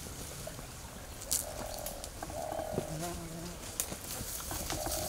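Two short buzzing animal calls in a row about a second and a half in, over light rustling and scattered clicks.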